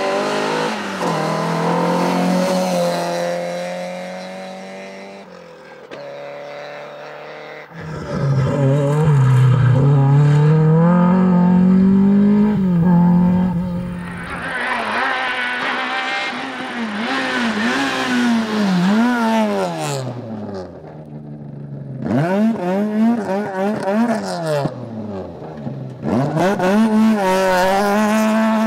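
Rally cars driven hard on a stage, one after another: engines climb in pitch through quick upshifts and fall back on lift-off. The sound changes abruptly several times as one car gives way to the next.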